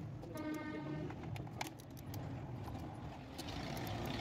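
Scattered clicks and metal clinks of a socket wrench being worked on the throttle body bolts of a Toyota Corolla engine, over a steady low background hum. A brief pitched tone sounds about half a second in, and a hiss builds near the end.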